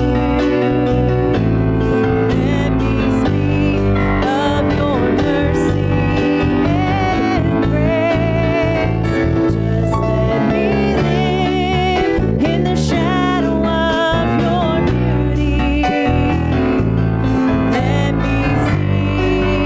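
Live praise-and-worship band playing: keyboard, acoustic guitar, congas and drum kit, with a voice singing over them.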